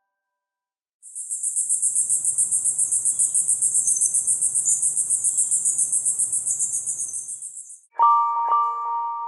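Google Pixel phone sound imitating a cricket: a high, rapidly pulsing chirring trill that lasts about seven seconds and then stops. Near the end a different tone starts, a series of struck, chime-like mallet notes.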